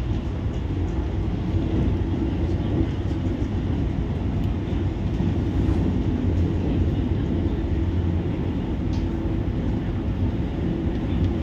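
Steady low rumble of a moving passenger train, heard from inside the Argo Parahyangan's panoramic carriage.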